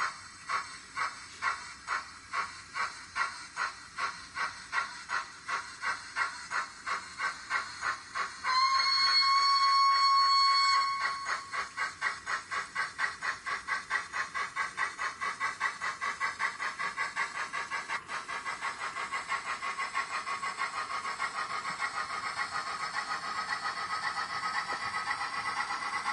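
Steam locomotive sounds from the DCC sound decoder of a Dapol Hawthorn Leslie model locomotive. Exhaust chuffs speed up as the loco pulls away, and a steady whistle blows for about two and a half seconds starting around eight seconds in. After the whistle the chuffs keep getting quicker until they almost run together.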